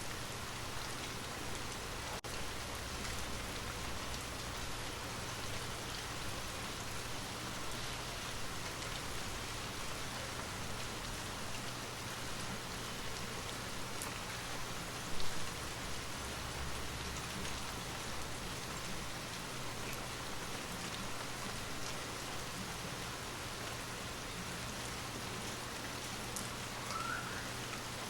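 Steady rain falling, an even hiss of drops on a surface, with one brief louder moment about halfway through.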